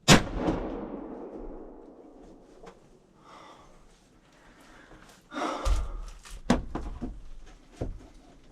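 A single loud shotgun shot inside a hunting blind, its echo dying away over about two seconds. A few seconds later come several heavy knocks and thumps of movement and gun handling.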